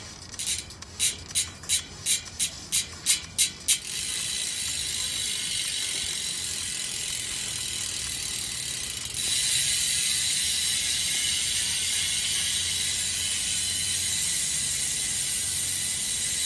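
ARC MT-007 bicycle rear hub's freehub ratchet clicking loudly, first in about ten short bursts roughly three a second as the wheel is spun in jerks. It then runs into a fast, continuous high clicking buzz as the wheel freewheels, which gets louder about nine seconds in.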